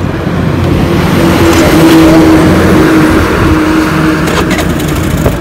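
Motor vehicle engine running, a steady hum with a held tone that swells to its loudest about two seconds in and then eases off.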